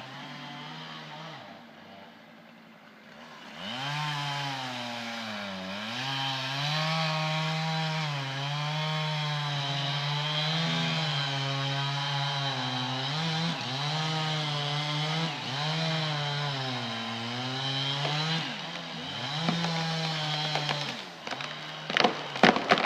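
Chainsaw running at high revs while cutting a tree, its pitch dipping and recovering again and again under load, after a quieter start. Several sharp cracks near the end.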